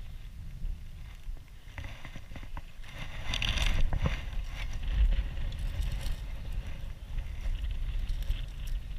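A hooked bass splashing at the surface as it is lifted out of the water about three seconds in, over a steady low rumble, with a thump about five seconds in.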